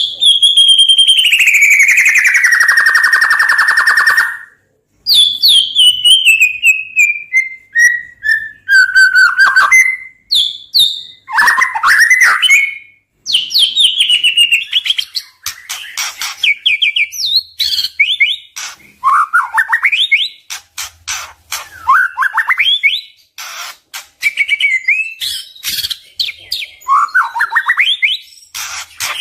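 White-rumped shama (murai batu) singing. It opens with a long whistle that glides down from high to lower pitch and holds for about four seconds, then gives a slow run of notes stepping downward, then quick, varied phrases of rising and falling whistles mixed with sharp clicks.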